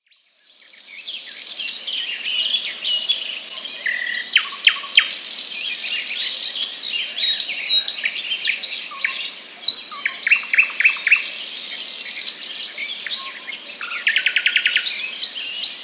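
Many birds chirping and singing together, fading in over the first couple of seconds and cutting off abruptly at the end. A fast, even trill comes near the end.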